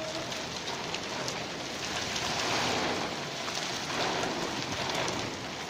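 Rain falling on a flat rooftop in a thunderstorm: a steady hiss of drops.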